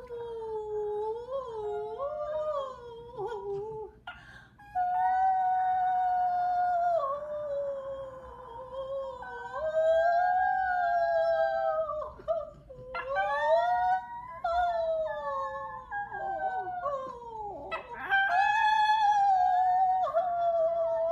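Miniature schnauzer howling in long, wavering howls, joined by a woman howling along in a similar pitch. Their howls overlap and break off for short breaths a few times.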